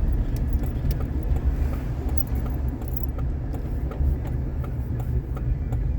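A car's road and engine rumble heard from inside the moving car, steady and low, with small scattered clicks and light rattles over it.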